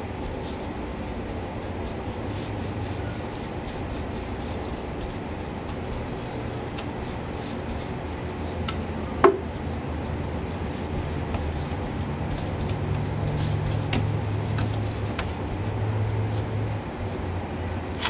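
Paintbrush stroking paint onto a wooden door panel: faint, irregular scratchy brush strokes and taps. Under it a steady low hum that grows somewhat in the second half, and one sharp click about nine seconds in.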